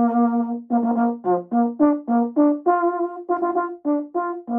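A solo bugle call: a held note, then a quick run of about a dozen short, separately tongued notes on a few pitches, and a new held note starting right at the end.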